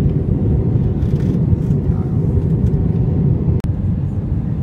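Steady low roar of an airliner cabin in flight, the jet engines and airflow heard from a window seat over the wing during the descent to land. A single click with a momentary dropout about three and a half seconds in.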